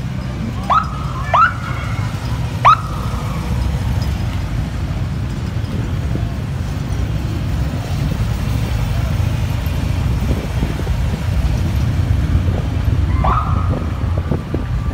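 A column of police motorcycles rolling past at low speed, their engines a steady low rumble. Three short rising siren chirps come in the first three seconds, and one more near the end rises and then holds its pitch for over a second.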